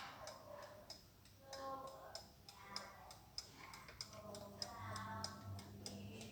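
A French Bayard Tapageur wind-up alarm clock from the 1920s–30s ticking quietly and steadily.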